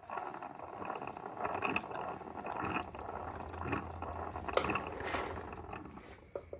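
Gears and shafts of a Warner Bearing T9 transmission being turned over on test after reassembly: a continuous rattling, clicking whir of meshing gears that starts abruptly and dies away near the end.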